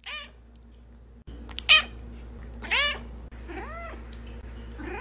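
A cat meowing repeatedly: five meows about a second apart, the loudest a short one a little under two seconds in.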